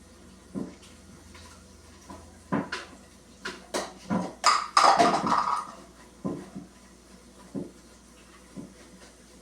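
Objects being knocked, handled and set down while a refrigerator is cleaned out: a string of irregular knocks and clatters, loudest in a rattling clatter about four and a half to five and a half seconds in.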